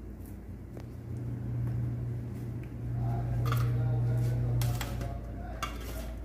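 A spoon clinking and scraping against a steel plate a few times, from about halfway in, as potato masala is scooped out, over a steady low hum.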